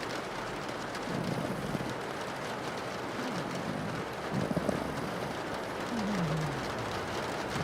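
Steady rain on a window, with a pug's low snores heard over it a few times, the last one falling in pitch.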